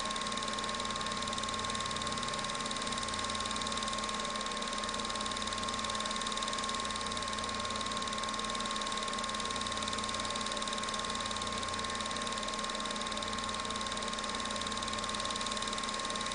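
Film projector running: a steady mechanical whir with a constant high-pitched hum and hiss.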